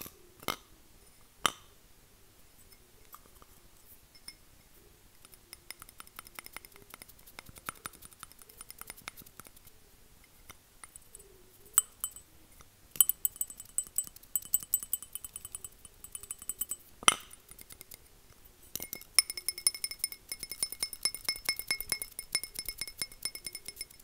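Tapping on a hard object with fingertips or nails: two single taps at the start, then quick runs of light tapping from about five seconds in. In the later runs the tapped object rings with steady high tones that stop when the tapping pauses, a glassy clinking.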